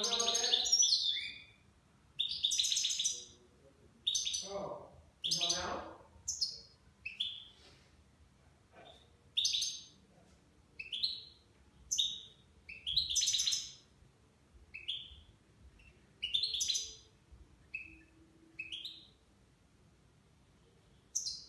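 Caged European goldfinch singing: a string of short, high chirping phrases, about one a second with brief gaps between, in the Levantine (Shami) song style its keeper trains for.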